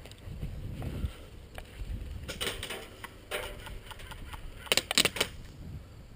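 Wind and handling rumble on a helmet-mounted camera's microphone as the wearer moves across grass. Short bursts of hissing noise come a couple of seconds in. A fast cluster of sharp clicks or snaps, the loudest sound, comes about five seconds in.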